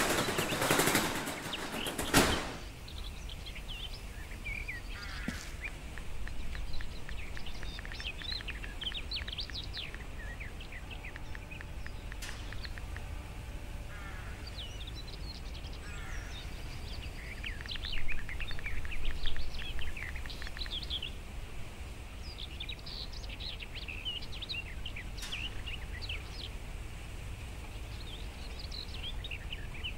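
Small birds chirping in short, scattered calls over a low steady background rumble, with a brief clatter about two seconds in.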